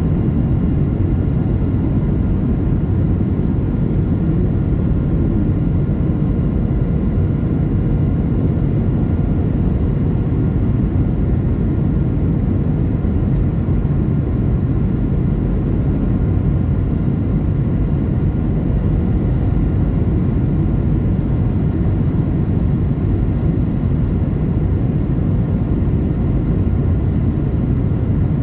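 Steady low rumble of a Boeing 737-800 in flight, as heard inside the cabin: airflow noise and its two CFM56 jet engines, with a few faint steady tones above the rumble.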